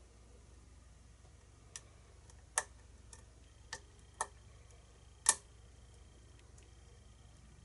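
Sharp metallic clicks from a pick and tension tool working in a Schlage-keyway pin-tumbler lock, about six irregular ticks over a few seconds, the loudest about five seconds in.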